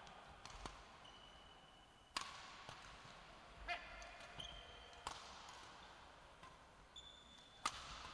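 Badminton rackets striking a shuttlecock in a doubles rally: sharp strikes, the three loudest about two, five and seven and a half seconds in, with lighter taps between. Short squeaks of court shoes on the sports floor come between the hits.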